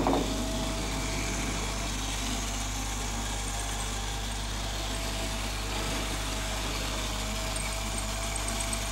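Electric model train running around its track: the steady whirr of the small motor and the wheels on the rails, with a faint steady whine.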